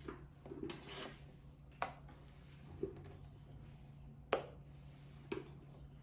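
A silicone spatula scraping cream from a stainless steel mixing bowl, with a few sharp taps against the bowl. The loudest tap comes about four seconds in.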